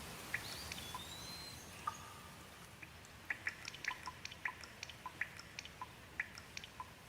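Rain drips falling irregularly over a soft hiss, the drops coming thicker from about three seconds in. A brief high whistle sounds near the start.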